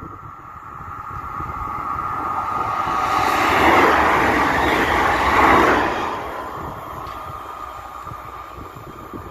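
Double-deck electric regional train passing close by, its rolling noise swelling to a peak in the middle and then fading away.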